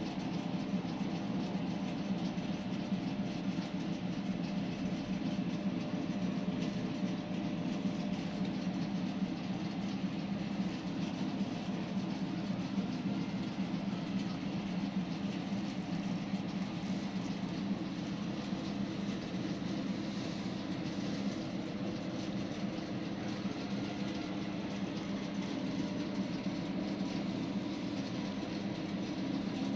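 A steady low mechanical hum, like an engine or machine running, unchanging in pitch and level.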